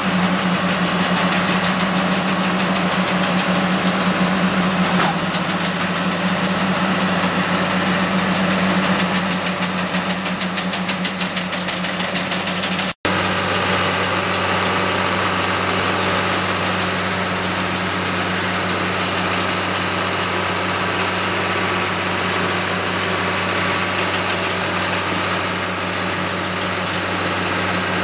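Over-the-row olive harvester working along a row of trees, its diesel engine and harvesting mechanism running steadily with a constant hum and dense mechanical clatter. The sound cuts out for an instant about halfway through, then carries on with a deeper hum added.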